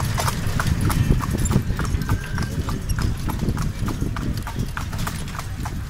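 The hooves of a horse pulling a tanga clip-clop on an asphalt road in a steady rhythm, about three strikes a second, over a low rumble.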